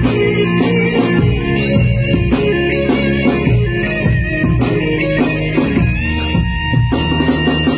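Band music with guitar and a steady beat of drums.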